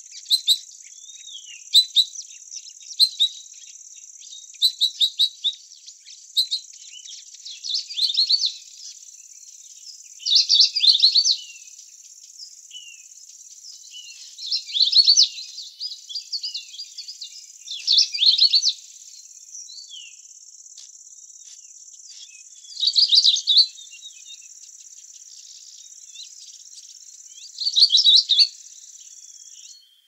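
A songbird singing short bright phrases, a burst every few seconds, over a steady high-pitched drone of insects that stops abruptly near the end.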